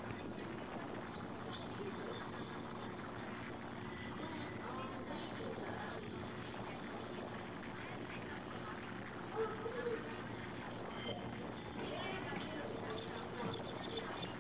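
A loud, steady high-pitched tone holding one pitch throughout, over faint background noise.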